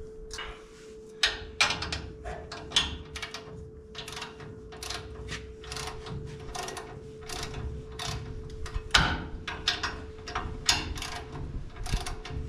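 Hand ratchet wrench clicking in repeated short strokes as bolts on a new front disc-brake spindle are run in.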